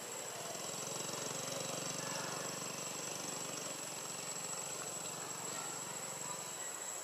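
A small engine running steadily in the distance, fading in just after the start and fading out near the end, over the constant high, thin whine of insects.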